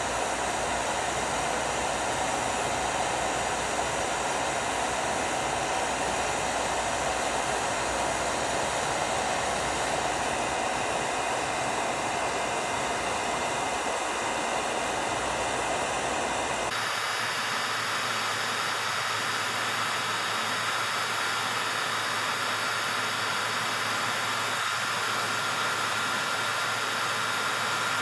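Handheld heat gun blowing a steady stream of hot air close to the canvas, heating colored pencil so it melts and blends in. About two-thirds of the way through, the sound changes abruptly and loses its low rumble.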